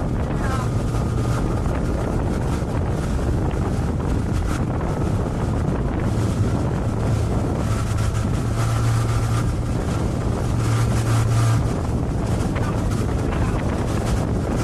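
Motorboat engine running steadily while under way, a constant low drone, with wind buffeting the microphone.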